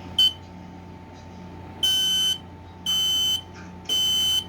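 FireX i12080 smoke alarm sounding under test: a short high beep near the start, then three long beeps about a second apart, the temporal-three alarm pattern. A steady low hum runs underneath.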